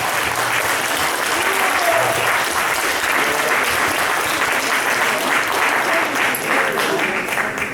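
Audience applauding steadily in a hall, with a few voices calling out, fading away near the end.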